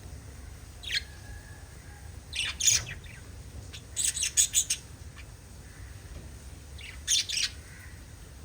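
Pet lovebirds chirping: short, sharp, high-pitched chirps in a few separate groups, including a quick run of about five in the middle.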